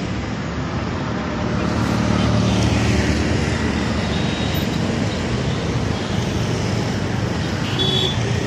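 Steady road traffic noise, with a vehicle's engine passing and getting louder about two seconds in.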